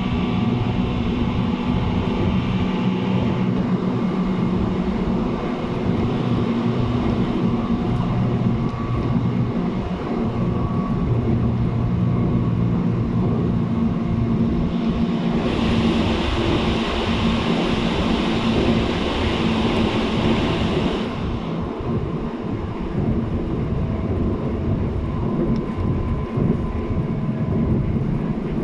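JR East 719 series electric multiple unit running at speed, heard from aboard: a steady drone of motor and gear tones over wheel-on-rail rumble. This is the unit singled out for its unusual running noise. Midway a loud hiss comes in for about five seconds, then drops away.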